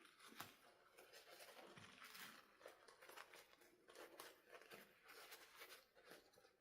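Faint handling noises: soft rustles and a scatter of small clicks, like hands working with plastic and packaging at close range.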